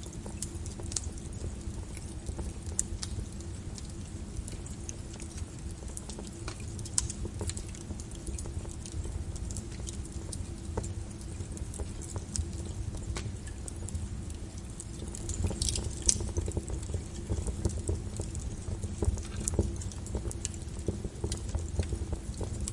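Wood fire crackling in a fireplace: irregular sharp pops and snaps over a low, steady rumble of burning, with a brief flurry of crackles and hiss about sixteen seconds in.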